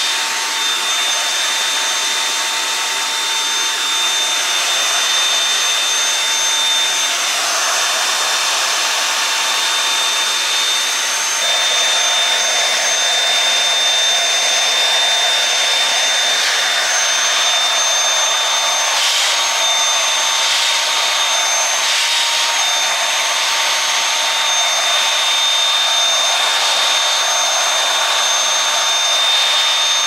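Dyson vacuum cleaner running steadily with a high whine over a rush of air as its brush nozzle is drawn through a cat's fur; the air noise grows fuller about a third of the way in.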